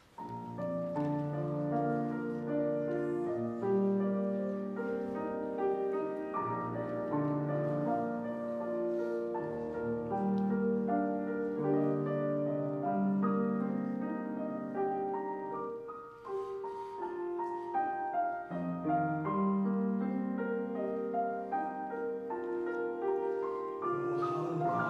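Piano playing a slow, gentle introduction of sustained chords that change every second or two.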